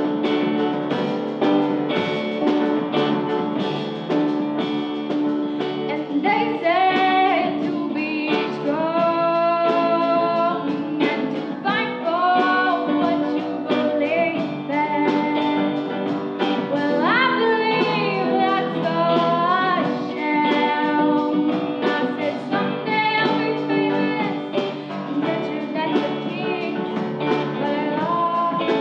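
A stage musical solo song. Instrumental accompaniment plays alone at first, and about six seconds in a young female voice begins singing over it, holding and bending long notes.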